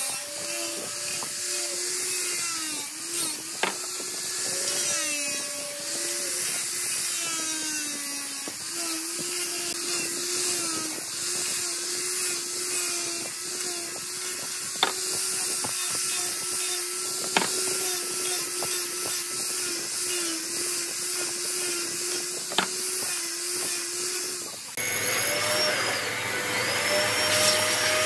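Handheld angle grinder with a sanding disc running against wood, its motor note steady but sagging briefly each time the disc is pressed in, with a few sharp clicks. About 25 seconds in, a different machine takes over: a mortising machine's motor starting up with a rising whine, twice.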